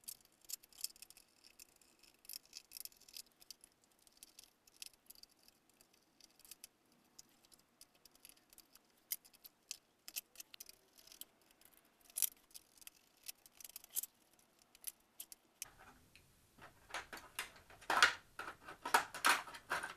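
Scattered small clicks and taps of a screwdriver working screws and of plastic and metal projector parts being handled, growing busier and louder near the end.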